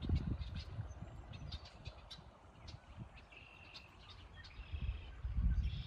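Small birds chirping: many short high calls, a brief held whistle about three seconds in and a cluster of calls near the end, over a low rumble that swells at the start and again near the end.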